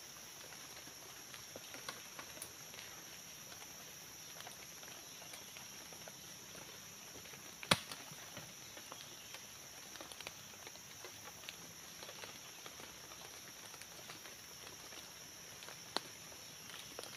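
Steady high-pitched insect drone of tropical forest, with faint rustling and small clicks of leaves and twigs being handled on the forest floor. A sharper snap comes about eight seconds in, and a smaller one near the end.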